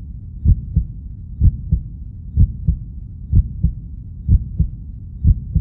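Heartbeat sound effect: a slow, even double thump (lub-dub) about once a second over a low steady rumble.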